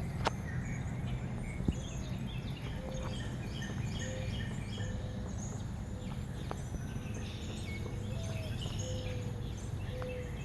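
Several birds chirping and calling, with short high chirps and a repeated lower note about once a second, over a steady low rumble. A few single taps sound, one near the start and one at about two seconds.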